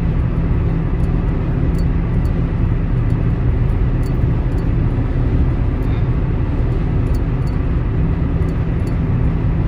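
Car driving on the road, heard from inside the cabin: a steady low rumble of tyre and engine noise.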